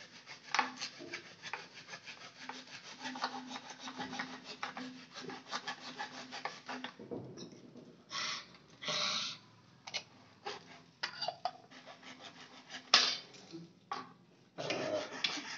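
Hands working a blue PVC pipe union and ball valve: plastic rubbing and scraping in quick, dense strokes for about seven seconds, then a few separate scrapes and knocks as the fitting is handled and tightened.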